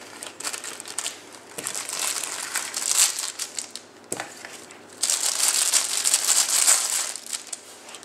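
Packaging crinkling and rustling as it is handled, in two long stretches with a short pause about four seconds in.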